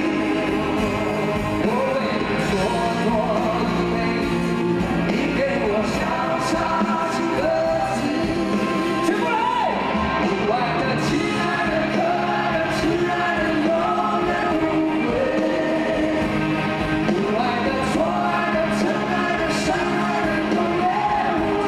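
Male vocals singing a rock ballad live over acoustic and electric guitars.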